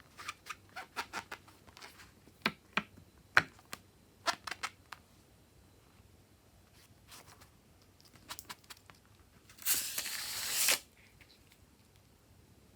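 Slime-making handling sounds: a string of small sharp clicks and snips, a few more a little later, then about a second of loud hissing noise near the end.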